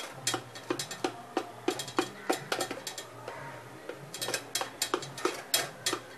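Kitchen knife cutting a hot steamed dill and gram-flour cake in a metal tin, the blade knocking and scraping against the tin in quick, irregular clicks.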